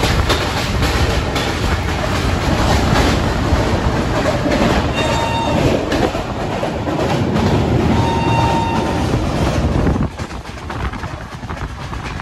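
Passenger express train running, heard from an open coach doorway: a loud, rough rumble of wheels on the rails. The noise drops suddenly about ten seconds in, and a faint high tone comes and goes twice.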